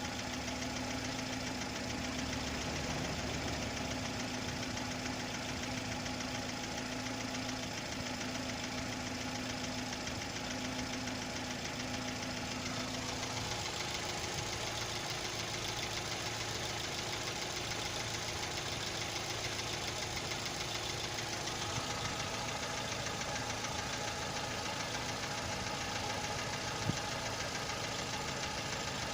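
VW Polo 6N1 engine idling with a steady, fast rattle from the valve train, which the owner suspects comes from the hydraulic lifters. One sharp knock stands out near the end.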